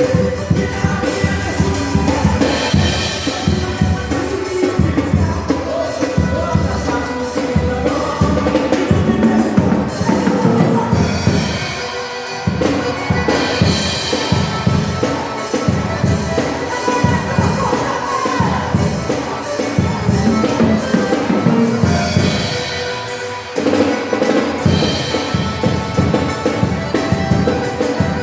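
Drum kit played along to a recorded worship song, with steady kick and snare hits over the band's music. The beat drops out briefly twice, about twelve seconds in and again about twenty-three seconds in.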